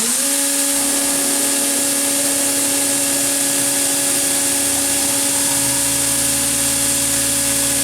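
Fanuc Robodrill Alpha-T21iD vertical machining center's spindle finishing its spin-up right at the start, then running at high speed (about 16,000 rpm) with a steady high whine over hiss. A lower hum joins in about five and a half seconds in.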